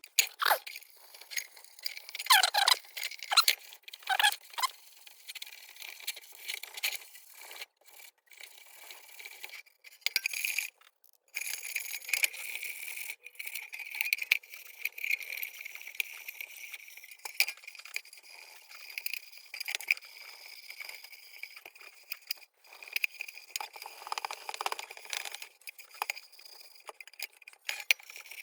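Scraping and clinking on the tin parts of an antique lantern being worked by hand, with irregular sharp clicks. About a third of the way in, a steady high whine joins and runs on under the scrapes.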